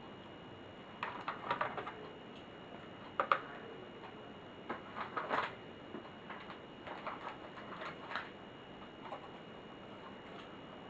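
Irregular light clicks and taps of small laptop parts being handled during disassembly, with a couple of sharper knocks about three seconds in.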